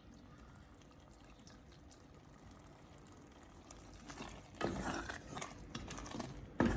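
A utensil stirring the stew in an aluminium cooking pot: faint at first, then louder scraping and knocks against the pot from about four seconds in, ending with a sharp click.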